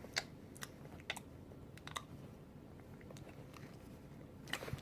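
Light clicks and taps of small plastic toys and a plastic plate being handled, several scattered single clicks with a quick cluster near the end.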